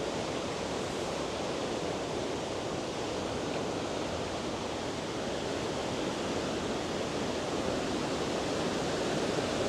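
Steady rushing of a large waterfall, Kakabeka Falls, an even noise with no breaks.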